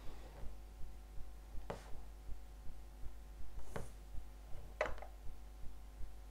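Quiet handling of a hinged plastic Play-Doh shell mould being opened and modelling dough peeled out of it, with a few soft plastic clicks.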